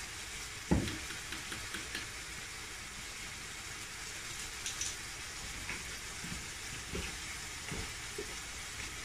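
Minced chicken frying in oil in a pan: a steady sizzling hiss with faint crackles. A sharp knock comes about a second in, with a few softer thumps near the end.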